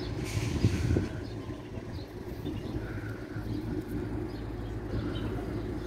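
Railway station platform ambience: a steady low hum, with a brief hiss just after the start and faint short chirps scattered through.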